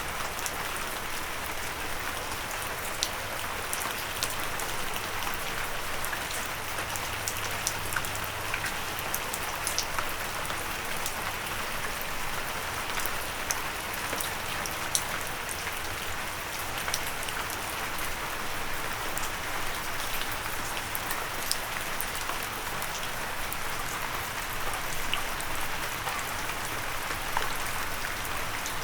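Steady rain with individual raindrops ticking sharply, many scattered drops a second over an even hiss.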